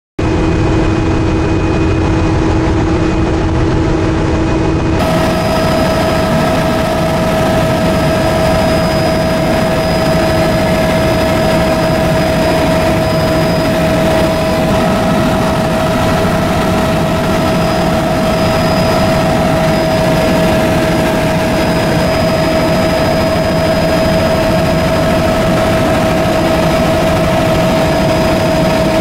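Helicopter turbine engine and rotor running steadily in flight, a constant loud drone with a steady high whine. About five seconds in the sound changes abruptly, at a cut to another stretch of the flight.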